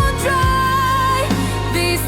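Music from a slow, melancholy song: a held, slightly wavering melody line over steady low bass notes.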